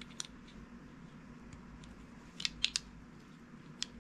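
Small sharp metal clicks as a pistol's recoil spring and guide rod assembly is worked into the slide of an HK P2000SK: one click near the start, a quick run of three or four clicks about two and a half seconds in, and one more near the end.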